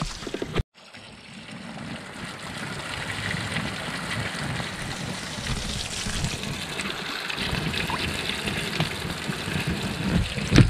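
Caterpillar pupae sizzling in hot fat in a pan, a steady hiss that slowly grows louder after a brief gap just under a second in.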